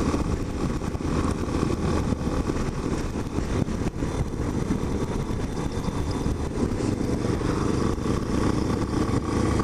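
Motorcycle engine running steadily while riding, a continuous low rumble with no revving.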